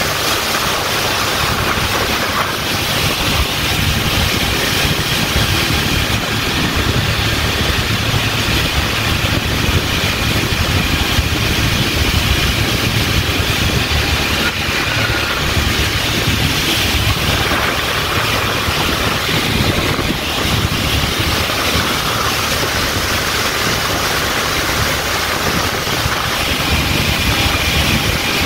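Small fishing boat under way: its motor running steadily, with wind and water rushing past.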